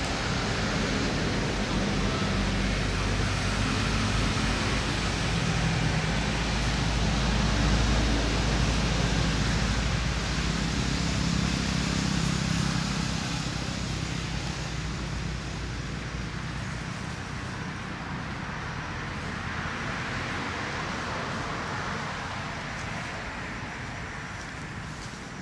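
A motor vehicle's engine, a low hum that builds to a peak about a third of the way in and then fades away after the middle, over a steady outdoor hiss.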